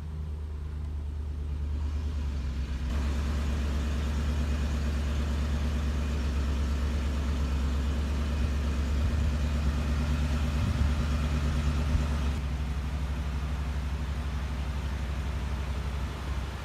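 An engine running steadily with a low hum; it grows louder over the first few seconds and then holds.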